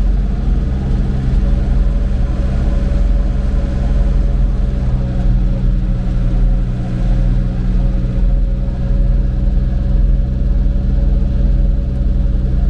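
Old tractor engine running at a steady speed, with a faint steady whine from about a second and a half in: the alternator belt, which still makes slight noises once the engine is warm.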